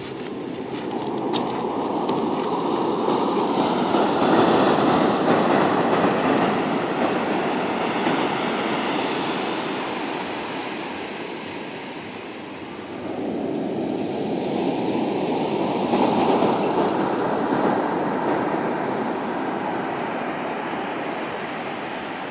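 Surf breaking and washing up a coarse sand and pebble beach: a long swell of rushing water that fades, then a second wave surging in about thirteen seconds in.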